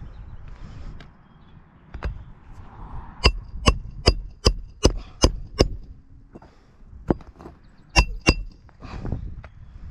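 Hammer blows on metal during shingle work: a quick run of about seven ringing strikes, then two more close together a few seconds later.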